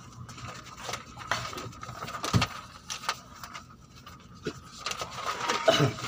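Scattered rustles, taps and small clicks of script pages being handled and people shifting at the microphones in a small, deadened recording booth.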